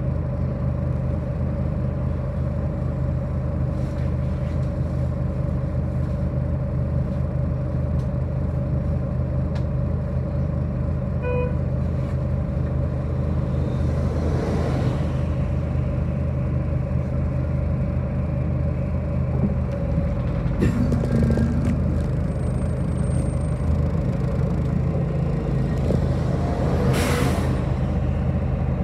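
City bus running with a steady engine drone. A short beep sounds before halfway, and two brief rushing hisses come about halfway and near the end.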